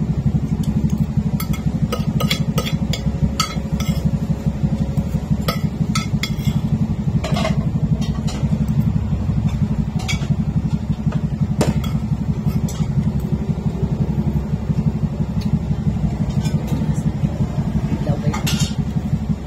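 Steady low rumble of a running engine, with scattered light clinks of spoons and forks against plates.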